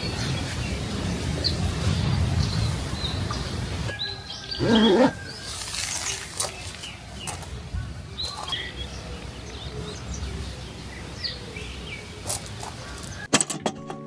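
Birds chirping in short scattered calls over a low steady background noise, with one brief louder sound about five seconds in. Music comes in near the end.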